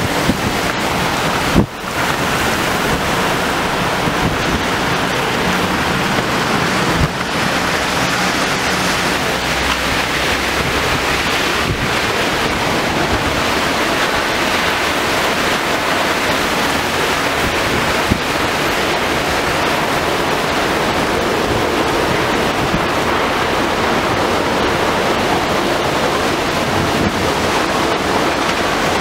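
Violent storm wind and heavy driving rain, a steady loud rush, with gusts buffeting the microphone. A sharp knock about a second and a half in, and a couple of smaller ones later.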